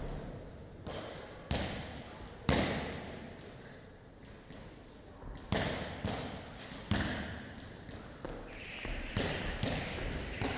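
Several irregular heavy thuds, each ringing out with a long echo in a large gym hall.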